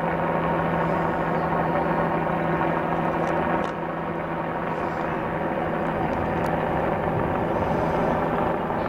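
Helicopter flying close by: a steady engine and rotor drone with a strong low hum that fades near the end, dipping slightly in loudness about three and a half seconds in.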